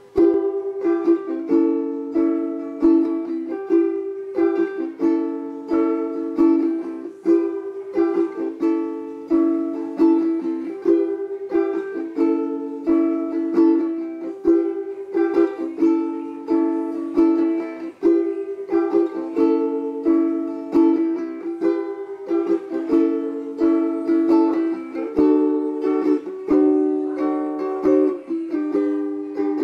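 Ukulele strummed in a steady down-up-down, up-down-up-down-up-down pattern, switching back and forth between E minor and A chords.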